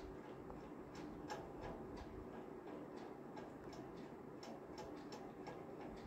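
A perforated metal spatula scraping and clicking against a metal kadhai while stirring a thick pea-and-paneer masala, with irregular faint ticks a few times a second.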